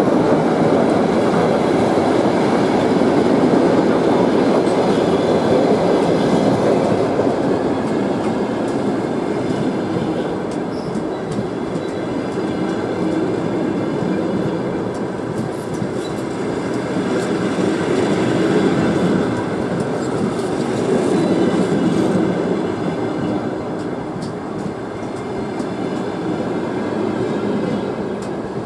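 Passenger train coaches rolling slowly past on departure: a steady rumble of steel wheels on the rails, with the clatter of wheels over rail joints.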